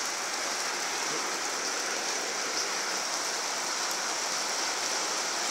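Steady rain falling, heard as an even hiss.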